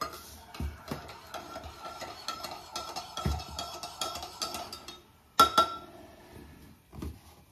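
A metal spoon stirring coffee in a mug, clinking rapidly against the sides while the mug rings, for about five seconds. Then two loud, sharp clinks about five and a half seconds in.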